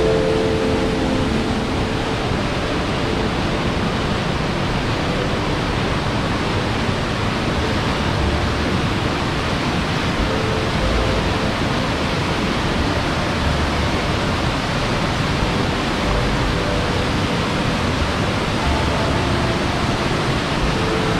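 Coquihalla River whitewater rushing through a narrow rock gorge: a steady, loud roar of rapids.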